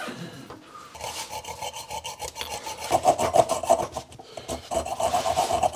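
Junior hacksaw sawing through an over-long 3.5 mm socket screw to shorten it: quick rasping strokes with a metallic ring, starting about a second in.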